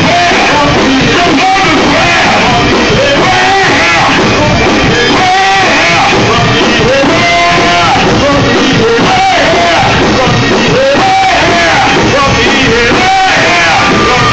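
A man singing a gospel song loudly into a microphone, backed by a Hammond organ and drums.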